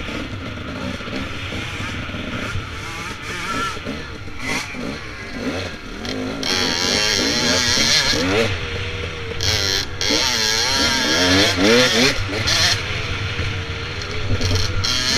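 Dirt bike engine revving up and down repeatedly as the throttle is worked on a trail, heard from a helmet-mounted camera. A louder rush of wind noise comes in about halfway through.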